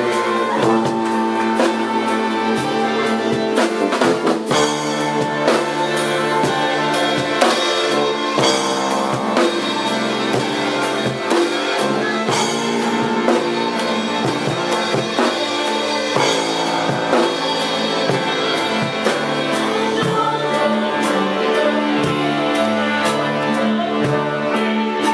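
Live band music: tuba and drum kit playing together, with drum strikes running throughout under sustained brass notes.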